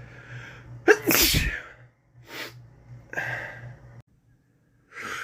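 A man with a head cold sneezing: a breathy in-breath, then one loud sneeze about a second in, followed by two shorter breaths and, near the end, another in-breath building toward the next sneeze.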